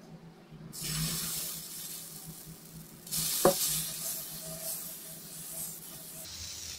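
Dosa batter sizzling as it is ladled onto a hot oiled tawa and spread in circles with the back of a steel ladle. The hiss starts under a second in and swells again about three seconds in, with a single clink of the ladle on the griddle, then settles to a steady sizzle.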